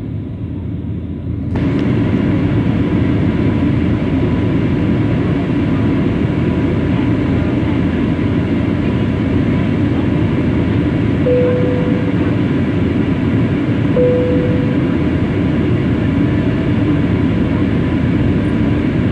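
Steady roar of an Airbus A320's engines and rushing air, heard inside the passenger cabin during the climb. Midway, two short single-pitch chime tones sound a few seconds apart: the cabin signal releasing the crew from their seats.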